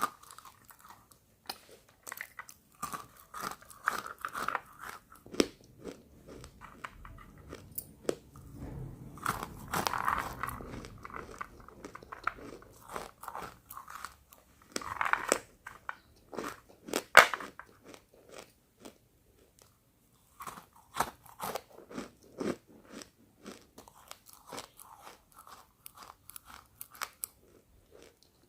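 Close-miked biting and chewing of roasted pink chalk: brittle crunches and crackling chews come in bursts. The loudest is a single sharp crunch a little past the middle, followed by a short pause before the chewing resumes.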